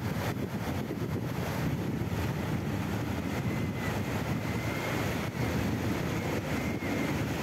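River rapids rushing steadily, with wind buffeting the microphone.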